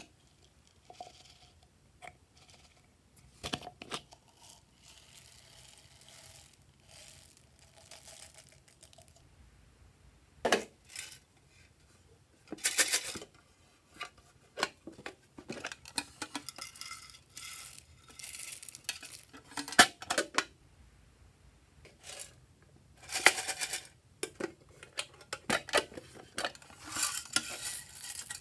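Hands handle plastic and tin containers, with clicks and taps, and tip small add-ins into a glass baking dish: rattling, crackly pours of beads, glitter and sequins. The first few seconds are sparse and soft; the sounds are louder and busier later.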